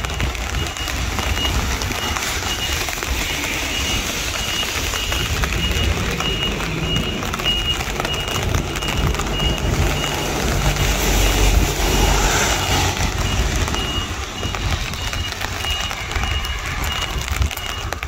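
Steady hiss of heavy rain with a low vehicle engine rumble that swells about ten to twelve seconds in. A high beep repeats at a steady pace throughout, like a reversing alarm.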